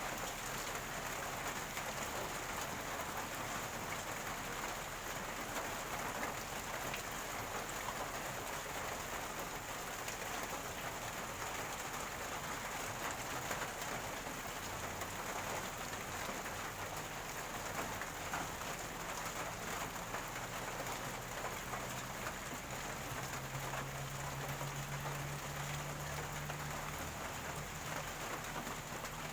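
Steady rain falling, a dense, even patter of drops, with a faint low hum joining about halfway through.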